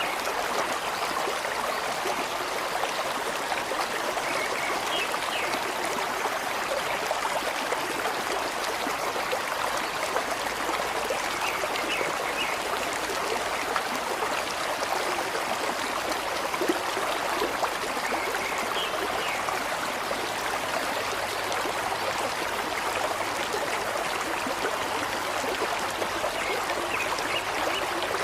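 Flowing water running steadily with an even rushing sound, like a stream, with a few faint short high notes now and then.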